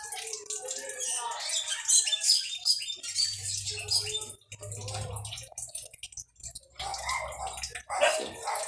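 Nylon monofilament fishing line rustling and crackling as it is pulled and looped by hand, in irregular scratchy bursts.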